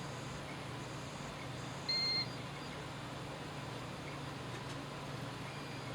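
A BT-770S multimeter in diode-test mode gives one short, high beep about two seconds in, over a steady low hum.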